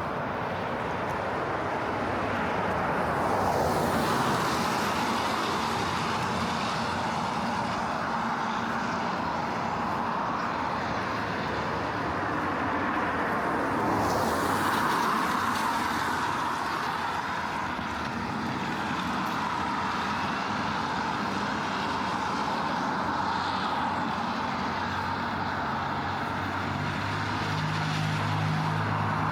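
Gentle rain falling steadily, with cars passing on the wet street: a swell of tyre hiss about three seconds in and another about fourteen seconds in. A low engine hum builds near the end.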